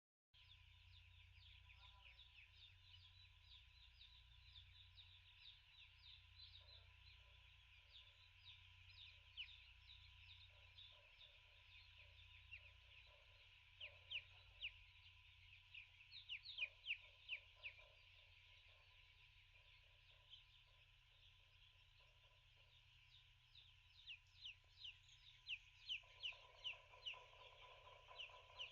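Broiler chicks peeping as a flock: a faint, continuous stream of short, high, falling cheeps, with louder clusters around the middle and near the end. A low hum and a faint steady tone run underneath.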